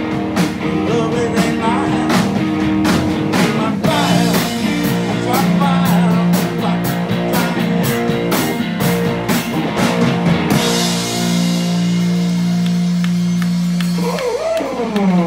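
Live rock band (electric guitars, bass and drum kit) playing a psychedelic rock song. About ten seconds in the beat stops and the band holds a final chord under ringing cymbals, then a pitch glide falls near the end.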